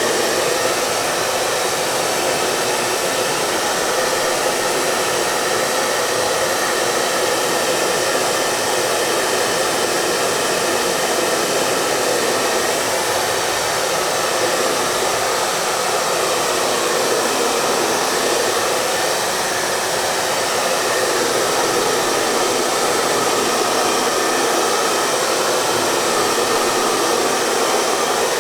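Hair dryer running continuously, a steady, even rush of blower noise that holds the same pitch and level throughout.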